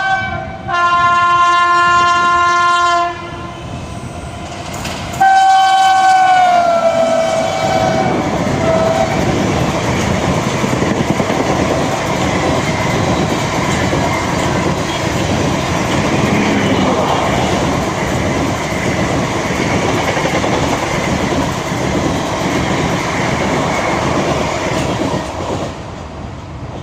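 WAP-7 electric locomotive's multi-tone horn, sounded in two long blasts; the second slides down in pitch as the locomotive rushes past at about 111 km/h. The coaches of the express follow with a steady rush of wheels and clickety-clack, which fades away near the end.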